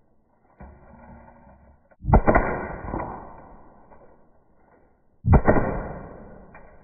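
Slowed-down, pitched-down audio of Umarex HDR 50 .50 calibre airgun shots striking a coconut: two sudden deep bangs about three seconds apart, each dying away slowly, with a fainter knock about half a second in.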